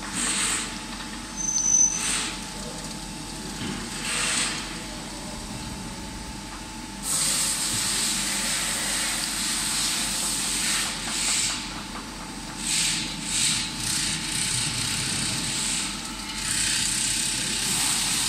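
CNC machine running a drilling cycle: short bursts of hiss in the first few seconds, then a longer, mostly steady hiss from about seven seconds in, over a faint machine hum.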